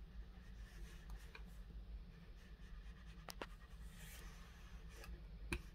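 Faint scraping of a small craft iron pressed and moved over cotton quilt fabric on a pressing mat, with a couple of light clicks, over a low steady hum.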